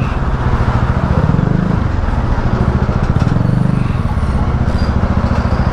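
Motorcycle engine running under way, with a fast, even low pulse, and wind rushing over the microphone.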